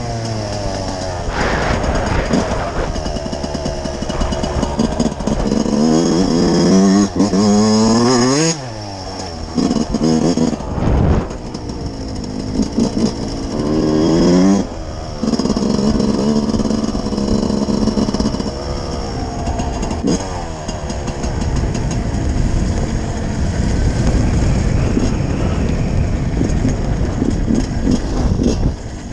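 Yamaha YZ125's single-cylinder two-stroke engine revving up and down as the dirt bike is ridden, with the throttle chopped and opened again several times. Over the last ten seconds or so the engine runs lower and rougher, with less clear pitch.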